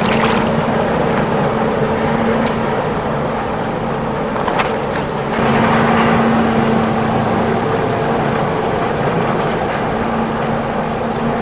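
Remote-control toy excavator running with a steady mechanical hum and a few clicks; its hum drops out for a few seconds near the middle and then resumes.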